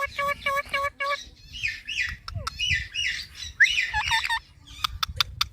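Ringneck parrot calling: a quick run of short repeated notes, about six a second, through the first second, then a string of squawky chirps. A few sharp clicks come near the end.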